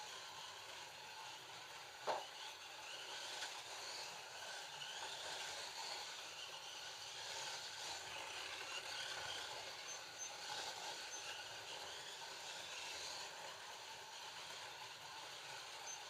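Scalextric digital slot cars running on the track, their small electric motors giving a steady, wavering whir, with one sharp click about two seconds in.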